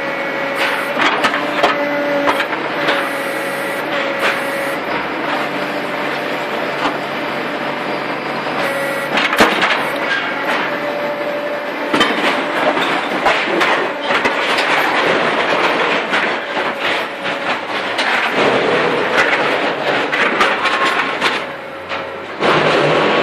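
Concrete paving-block machine running: a steady mechanical din with a steady tone that comes and goes, and many sharp metal knocks and clatters throughout.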